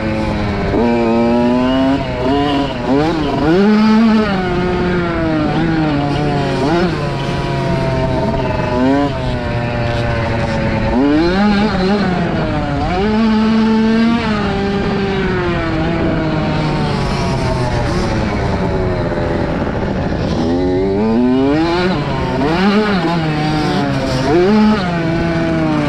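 Kawasaki KX65 two-stroke motocross bike engine being ridden hard, its pitch rising as it revs up and dropping back again and again.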